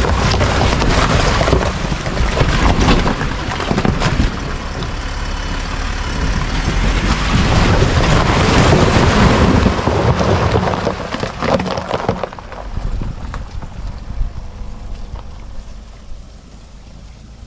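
Land Rover Discovery 4 driving over an iced-over road, its tyres crunching through ice and splashing through water under a low rumble. The noise is loud with many sharp crackles, then fades away after about twelve seconds.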